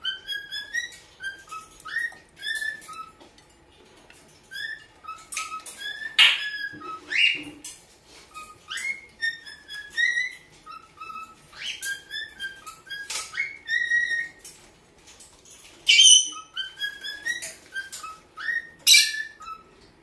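Cockatiel whistling its song: a long run of short whistled notes, many of them rising, with a few louder, harsher chirps mixed in.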